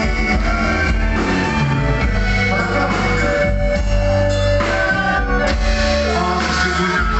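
Live band music: a singer's voice over sustained bass and held notes, continuous and loud.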